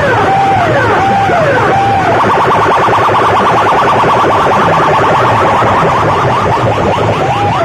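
Large DJ loudspeaker rigs blaring electronic siren effects. A falling tone repeats about twice a second, switches about two seconds in to a fast warbling pulse, and the falling tone returns near the end, with low bass underneath.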